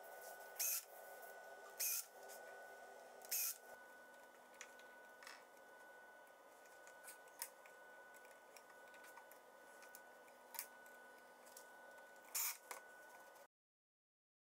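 Cordless drill-driver whirring in three short bursts about a second and a half apart as small screws are driven into a brass piano hinge. Then faint clicks of handling, one more brief burst near the end, and the sound cuts off suddenly.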